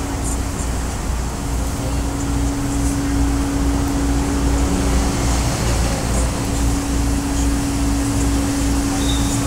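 A steady mechanical drone with a constant hum and a low throb pulsing about twice a second.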